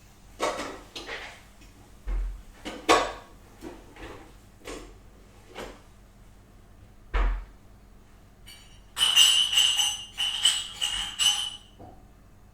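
Kitchen handling sounds: a string of separate knocks and clatters of dishes and utensils, then about nine seconds in a louder, noisy stretch of about three seconds with a steady ringing tone through it.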